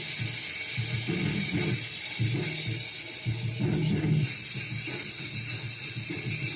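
Rock music played loud and dense, with an irregular low-end pulse under a steady high hiss.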